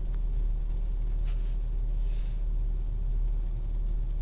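Steady low rumble of a car heard from inside the cabin, with a couple of brief soft rustles about a second and two seconds in.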